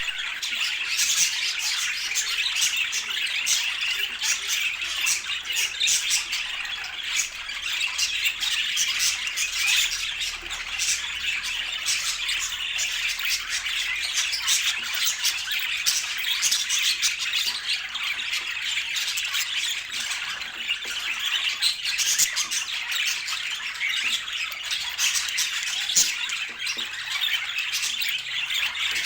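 Budgerigars chattering and squawking, a dense, unbroken stream of high chirps and scratchy calls.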